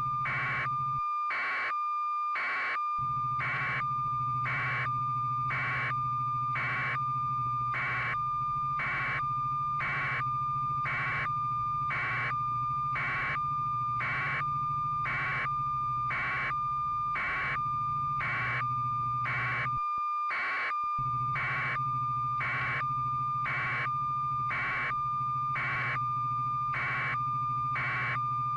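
Electronic beeping: a steady high tone with a louder beep repeating evenly about three times every two seconds, over a low hum that cuts out briefly about twenty seconds in.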